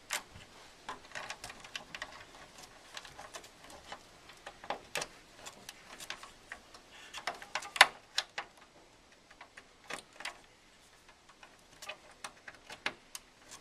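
Irregular sharp clicks and plastic rattles of SATA cables being handled and pushed into their connectors inside a computer tower, with one louder click a little under eight seconds in.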